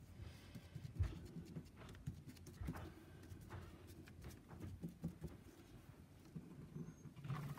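Foam sponge brush dabbing paint onto a paper cut-out on a table: a faint, uneven patter of soft taps, with a slightly firmer knock about a second in. It is stippling white paint into the wet yellow coat to give a pitted, textured surface.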